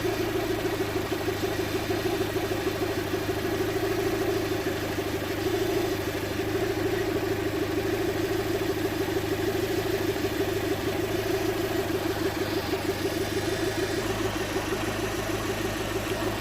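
2005 Land Rover Freelander 1.8 petrol four-cylinder engine idling steadily with a misfire, which the mechanic is pretty sure comes from worn spark plugs.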